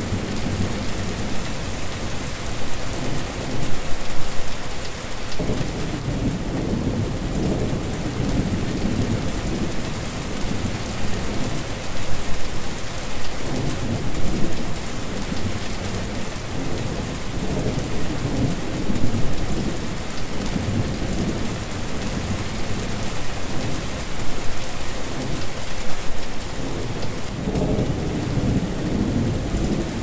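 Steady rain falling on a wet surface, with a deep rumble underneath that swells and fades every few seconds.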